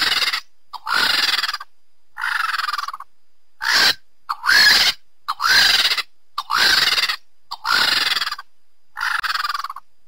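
A creature sound effect of bird-like calls, nine in a row about a second apart, each rising and then falling in pitch.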